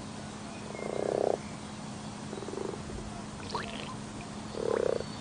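A frog croaking three times in short rattling calls, the first the loudest, with a few faint high chirps in between.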